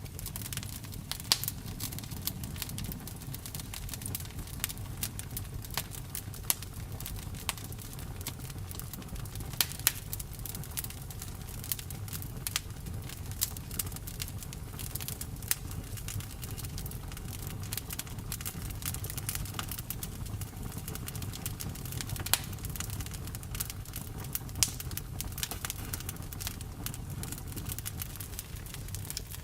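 Campfire burning with a steady low rumble and irregular crackles and pops, a few of them sharp and louder.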